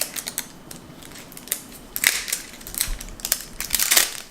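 Plastic wrapping of an L.O.L. Surprise! ball crinkling and rustling in irregular crackles as it is peeled off by hand, loudest about halfway through and near the end.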